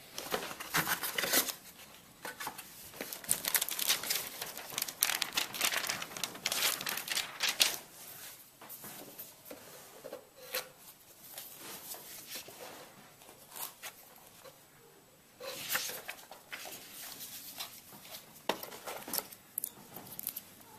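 Packaging being handled and opened, crinkling and tearing in bursts: dense for the first eight or so seconds, then quieter, with a few more bursts near the end.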